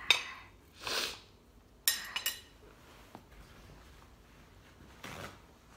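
Knife and plate clinking while a kiwi is cut into quarters: a sharp knock at the start, a quick cluster of clinks about two seconds in and one more a second later, with soft rustling between.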